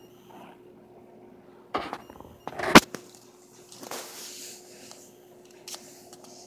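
Handling noise: rustles and bumps as hands and the phone move over a blanket and laptop, with one sharp knock a little under three seconds in. A faint steady hum runs underneath.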